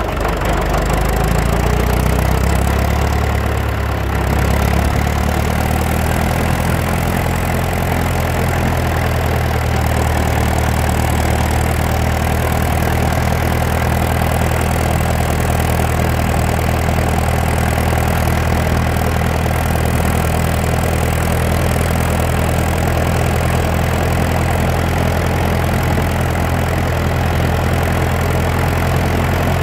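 David Brown 25D tractor's four-cylinder diesel engine running steadily while the tractor drives along the road, heard from the driver's seat close to the upright exhaust stack.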